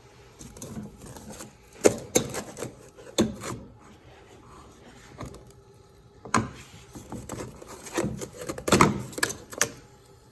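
Two bouts of sharp knocks and clattering, as of objects being handled and set down, separated by a quiet pause in the middle.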